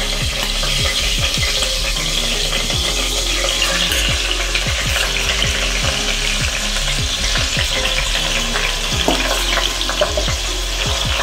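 Marinated chicken and potato pieces sizzling in a pressure cooker pot while being stirred with a spatula, which scrapes and knocks against the pot many times over a steady frying hiss.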